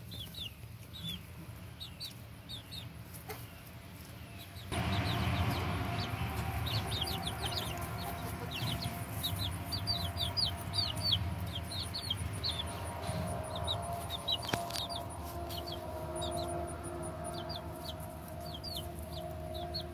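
Young chicks peeping: many short, high, falling peeps, several a second, all through. About five seconds in, a steady rushing background noise with a low hum comes in and stays.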